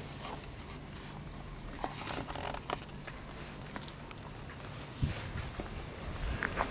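Steady high-pitched insect drone, with scattered footsteps and handling knocks as the camera moves, and a low thump about five seconds in.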